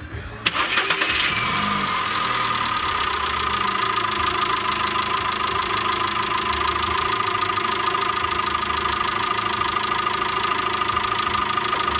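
VW Caddy's 2.0 BSX four-cylinder petrol engine starting about half a second in after a short crank, then idling steadily with a steady high whine, running on freshly fitted hydraulic lifters; the mechanic judges it to sound fine.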